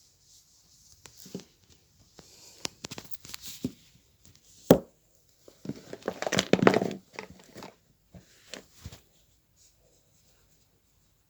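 New socks being handled and pulled from their packaging: irregular crinkling, tearing and sharp plastic snaps. There is one loud snap a little before halfway, then a dense burst of rustling.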